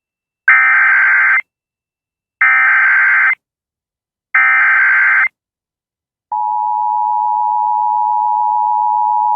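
Emergency Alert System signal opening a tornado warning: three evenly spaced bursts of about one second each of SAME digital header tones, then, about six seconds in, the steady two-tone attention signal begins and holds.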